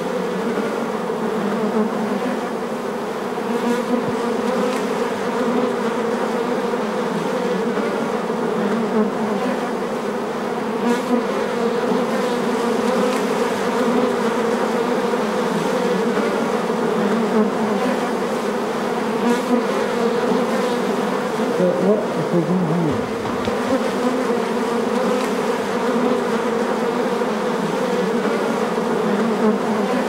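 Dense, steady buzzing of a wild honeybee colony disturbed as its combs are cut out and lifted. About three-quarters of the way through, one buzz slides down in pitch over the mass.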